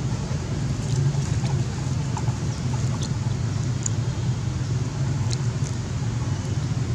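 Steady low rumble of background noise, with a few faint ticks scattered through it.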